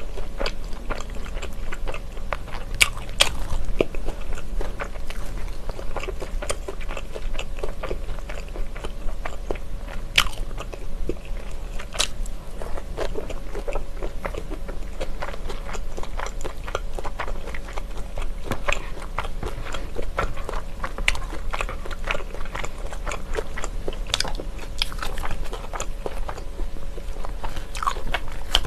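Close-miked chewing and biting of a cold glass-noodle, vegetable and shrimp dish (yangjangpi). It comes as a dense, irregular run of wet mouth clicks, smacks and small crunches.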